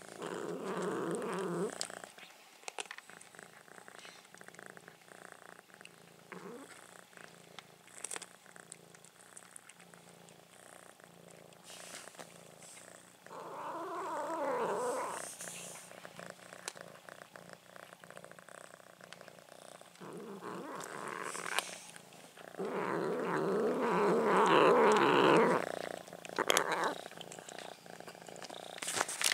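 A cat purring at its food bowl while eating, in four stretches of a couple of seconds each with quieter gaps between.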